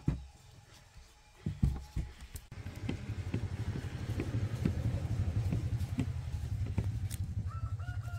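A few sharp knocks as the metal motor housing is handled. Then a steady low motor rumble with fast even pulses sets in, and a rooster crows near the end.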